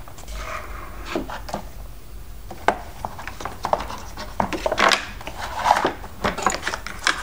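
Plastic toy playset pieces being handled and turned around: scattered light clicks, knocks and rubbing.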